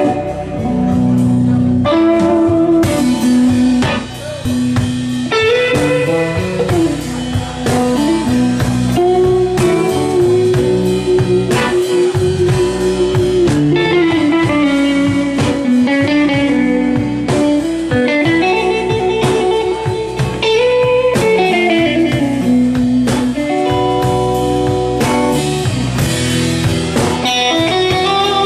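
Blues band playing live: electric guitar lead over drums, with no vocals.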